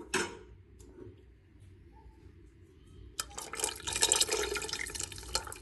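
Roasted wheat-flour (atta) batter poured in a thin stream into a pot of mutton nihari broth: a quiet stretch, then a steady splashing pour of liquid into liquid from about three seconds in.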